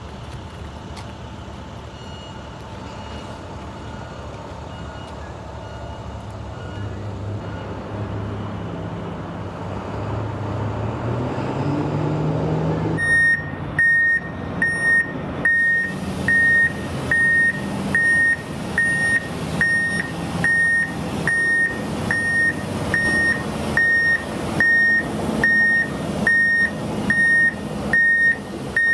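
A Mack CXU613 truck's diesel engine runs and grows louder as the truck comes closer, with a short rise in engine speed just before it goes into reverse. From about halfway, its reverse alarm beeps steadily at about one and a half beeps a second, a single high tone, while the truck backs toward the trailer.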